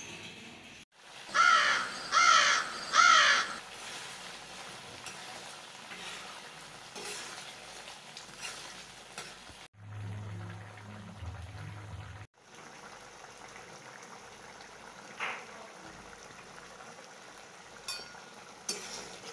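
Egg curry simmering in a karahi, its gravy bubbling and sizzling softly, with a few sharp clicks near the end like a spoon against the pan. About a second in, a bird calls three times in quick succession, the loudest sound here.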